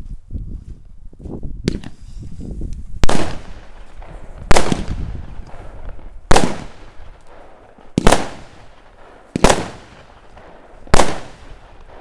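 Small consumer fireworks cake firing: six loud bangs about a second and a half apart, each trailing off in a short echo, after a few seconds of fainter noises.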